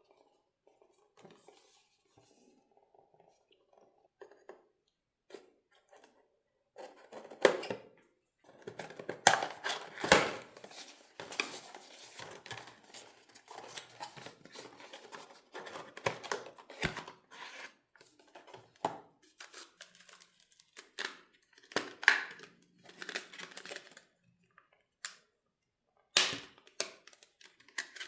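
Close-up handling of packaging: tearing, crinkling and rustling with a few sharper, louder scrapes. It is sparse and faint for the first several seconds, then busy.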